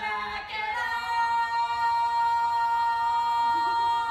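Live cabaret singing: after a few short sung notes, a voice holds one long steady note for about three seconds.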